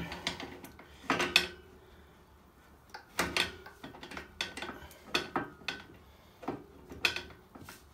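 Metal spanner clinking and knocking against a radiator valve's nut as it is fitted and turned to tighten the valve onto its pipe: a string of irregular sharp clicks, a few with a short metallic ring.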